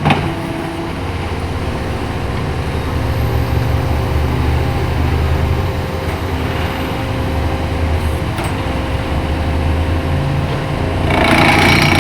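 Vehicle engines running steadily, with a louder, rougher stretch starting near the end.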